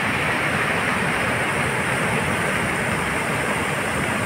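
Muddy river in flood rushing over rocks: a steady, loud rush of water.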